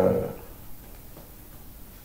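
A drawn-out spoken word trailing off in the first moment, then quiet room tone through a pause in the conversation.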